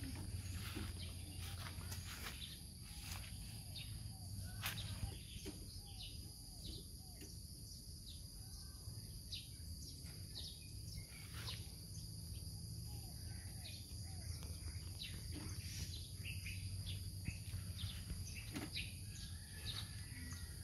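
Rural outdoor ambience: scattered bird chirps and calls over a constant low rumble and a steady high-pitched hum.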